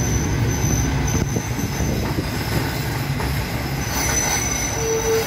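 Passenger train rolling slowly along a station platform, heard at an open carriage window: a steady low rumble of wheels on rail, with a thin high wheel squeal at the start and again from about four seconds in.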